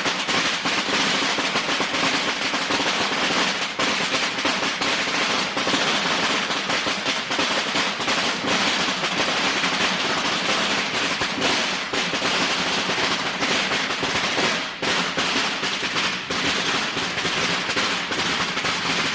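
A string of Chinese firecrackers (biānpào) going off in a dense, unbroken rapid crackle that barely lets up.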